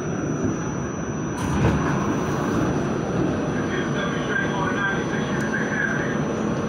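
New York City subway train running along the track: a steady rumble of wheels and motors that grows louder and brighter about a second and a half in.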